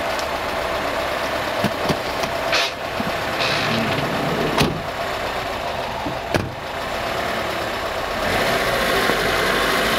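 Two sharp slams about two seconds apart as a Volkswagen Transporter van's sliding side door and driver's door are shut, with a vehicle engine running under a steady outdoor noise.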